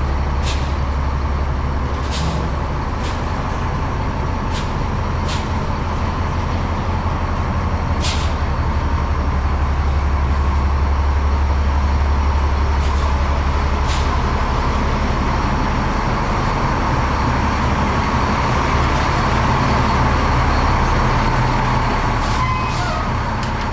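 International 5600 truck's diesel engine idling steadily, with scattered sharp clicks now and then and a whine that grows a little louder in the second half.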